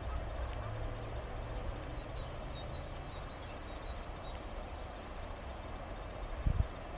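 Outdoor background noise: a steady low rumble with a few faint high chirps, and a single low thump near the end.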